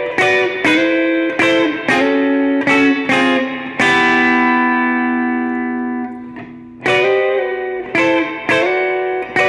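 Electric guitar playing a slow-blues phrase of picked three-note chords, slid up and down the neck. The chords come in quick succession, with one chord left ringing for about two seconds around the middle before the phrase picks up again.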